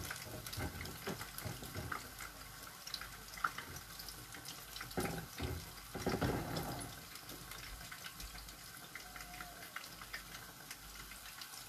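Sweet potato fritters frying in hot oil: a steady, fine crackling sizzle, with a couple of dull knocks about five and six seconds in.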